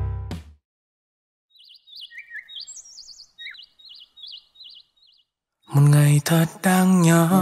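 A small bird chirping: a string of short, quick warbled notes for about three and a half seconds, with no other sound around them. Near the end, loud music comes in.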